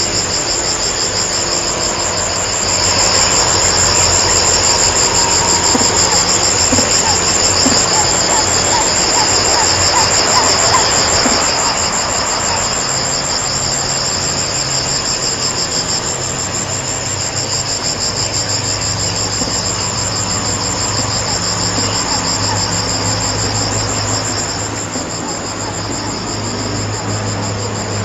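A steady, dense insect chorus, with a high, finely pulsing shrill that holds through. A short run of faint chirps comes about a third of the way in, over a low steady hum.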